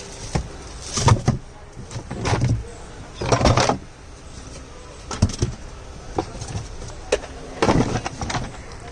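Irregular knocks and clatter of tools and engine parts being handled, with a few longer scraping bursts.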